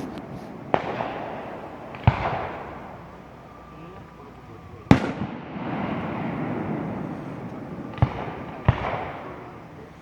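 Aerial fireworks bursting: five sharp bangs, the loudest about five seconds in, each followed by a long rolling echo.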